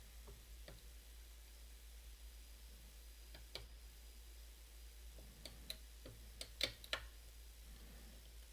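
Hook pick and tension wrench working the pins of a challenge lock: faint, scattered small clicks, with a quick cluster of sharper ones about six to seven seconds in.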